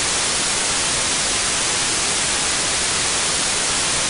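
Television static: a steady, fairly loud hiss of white noise from an untuned analog TV.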